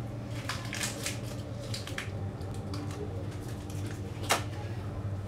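Scattered small crackles and crisp ticks, in loose clusters, with one sharp click about four seconds in, over a low steady hum.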